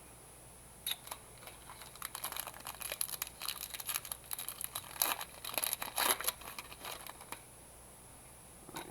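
Foil trading-card pack being torn open and crinkled: one click about a second in, then a dense run of crackling that stops about seven seconds in.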